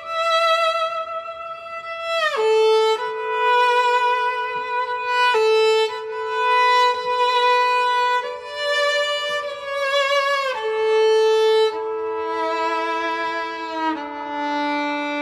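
Viola playing a slow melody in long bowed notes, sliding into some of them. Lower held notes join under the melody near the end.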